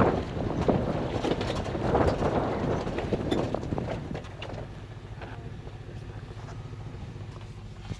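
Chevy Avalanche Z71 pickup driving off-road, with wind buffeting the microphone and scattered clicks and knocks. About halfway through it drops to a quieter, steady low engine hum.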